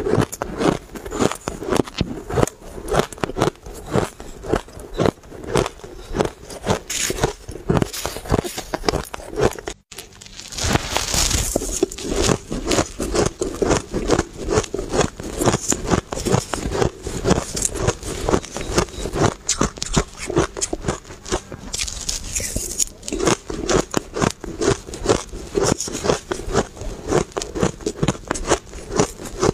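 Close-up crunching of mouthfuls of shaved ice being bitten and chewed: a dense, rapid run of crisp crunches, with one short break about ten seconds in.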